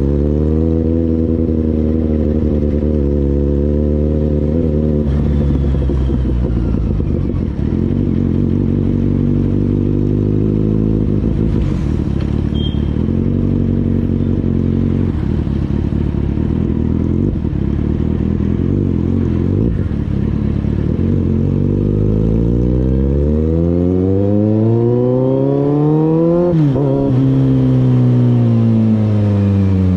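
Kawasaki Z800's inline-four engine running at low road speed, holding a steady low rpm for most of the time. About three quarters of the way in, the revs climb for a few seconds, drop abruptly and then keep falling.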